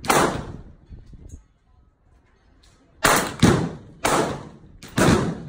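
.22 LR handgun firing: one shot at the start, then about five shots in quick succession from about three seconds in. Each is a sharp crack that trails off over about half a second.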